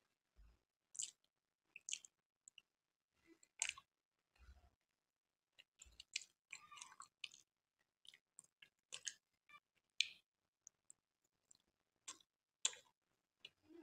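A person chewing gulab jamun close to the microphone: irregular, soft mouth clicks and smacks with short pauses between them.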